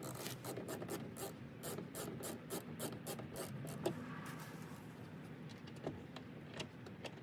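Small plastic-and-metal clicks and scraping from a screw being worked by hand with a screwdriver into a speaker and its baffle in a car door: a quick run of ticks for about three and a half seconds, then only a few scattered clicks.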